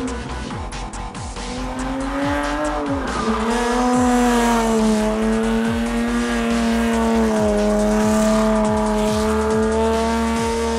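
BMW E30's engine held at high revs through a drift, with tyres squealing. The revs dip briefly about two to three seconds in, then hold steady. A beat of background music runs underneath.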